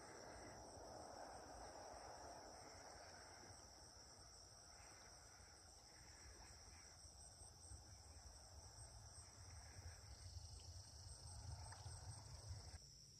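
Faint, steady chorus of crickets in a marsh at dusk, with a soft low rumble underneath.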